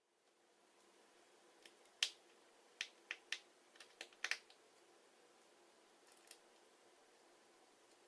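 Small, sharp clicks and taps of a screwdriver and tools on the tiny screws and metal shield inside an iPhone 5, scattered irregularly with most in a cluster a few seconds in, over a faint steady hum.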